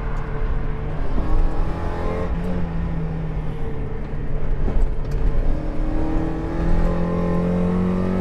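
Mazda MX-5 1.6 V-spec's twin-cam four-cylinder engine accelerating, the revs climbing steadily, falling at an upshift about five seconds in, then climbing again.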